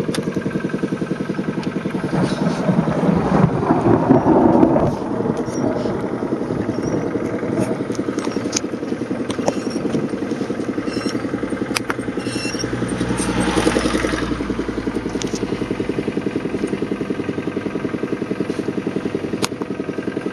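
Vehicle engine running steadily, with a louder rumbling swell about three to five seconds in and a lower, deeper swell around fourteen seconds.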